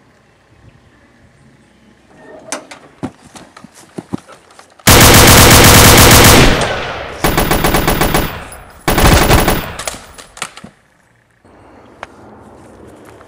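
Rapid automatic gunfire sound effects. A few scattered sharp cracks come first, then three long bursts of machine-gun fire, about five, seven and nine seconds in. The first burst is the loudest, and each trails off afterwards.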